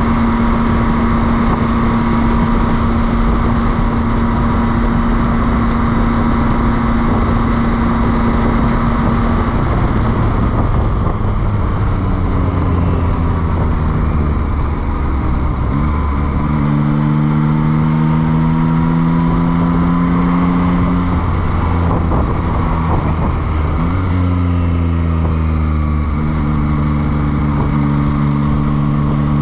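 Motorcycle engine running under a steady rush of wind noise. It holds one steady pitch for about the first nine seconds, then its pitch drops as the bike slows. In the second half the pitch steps up and down several times with the gear changes.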